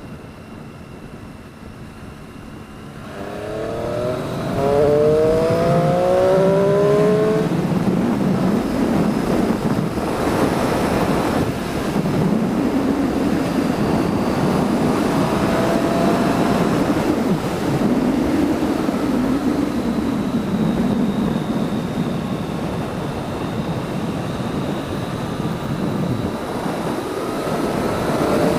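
Motorcycle engine accelerating hard about three seconds in, its pitch rising through the revs, then running at speed under heavy wind rush, with the revs rising again near the end.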